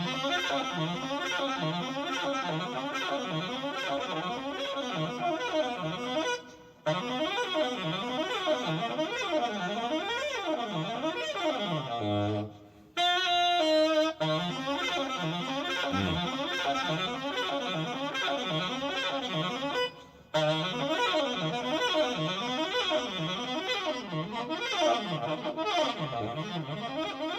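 Unaccompanied tenor saxophone playing rapid flurries of notes that sweep up and down the range over and over, with brief breaks for breath about 7, 13 and 20 seconds in.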